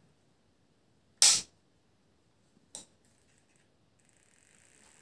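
Hard plastic parts of a StylPro makeup-sponge cleaner being handled: one sharp clack just over a second in and a lighter click a moment later. Near the end a faint high whir starts as the small spinner motor that spins the sponge dry is tried.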